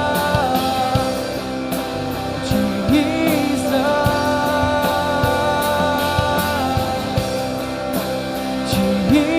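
Live worship band playing an instrumental stretch of a rock-style song: long held chords over drum hits.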